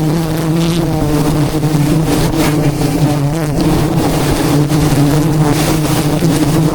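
Engine running steadily, a constant low hum with overtones.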